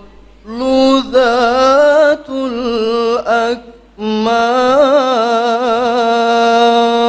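A man reciting the Qur'an in melodic tilawah style into a microphone. He sings two long phrases with richly ornamented, wavering pitch, and the second settles into a long held note.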